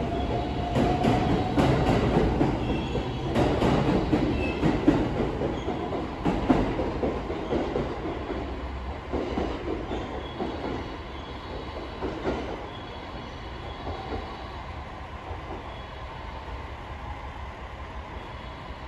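Electric passenger train running through the station on the far track, its wheels clicking over rail joints with some wheel squeal. The sound is loudest in the first few seconds and fades steadily as the train draws away, leaving a low rumble.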